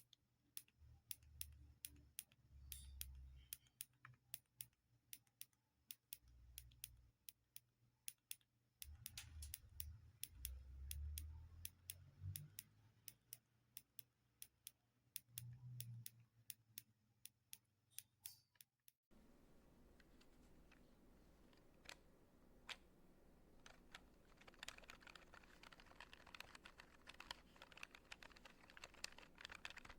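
Close-miked buttons and keys being pressed, many quick irregular clicks. About two-thirds of the way through the sound cuts to a denser, faster run of clicks over a faint hiss.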